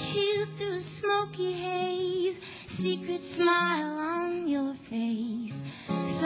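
A woman singing a slow song, accompanying herself on a nylon-string classical guitar.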